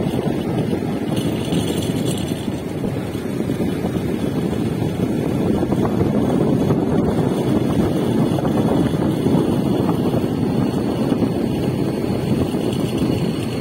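Steady rush of wind over the microphone of a moving motorcycle, mixed with the bike's road noise.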